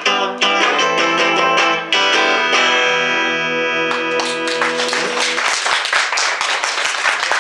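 Guitar strummed quickly, then a final chord left to ring out, with applause breaking out about four seconds in as the chord fades.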